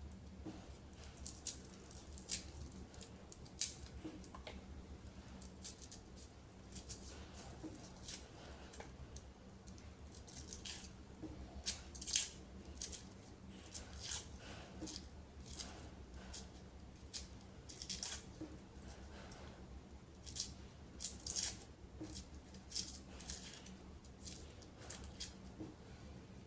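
Kitchen food-prep handling sounds: an irregular run of short, crisp snips and rustles, a few per second, over a faint steady hum.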